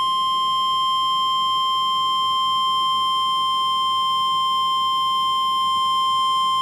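NOAA Weather Radio 1050 Hz warning alarm tone: a single steady, high-pitched tone held without a break, the signal that an emergency alert message is about to be read.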